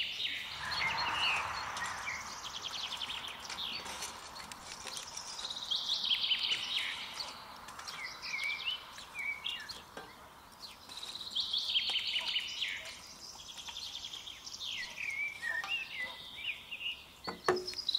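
Songbirds singing in repeated chirping and trilling phrases with short pauses between them, over faint outdoor background noise. A short knock comes near the end.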